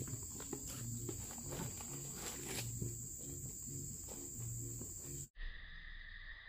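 Steady high-pitched drone of insects, with scattered light knocks. About five seconds in the sound cuts off abruptly and a lower steady insect drone takes over.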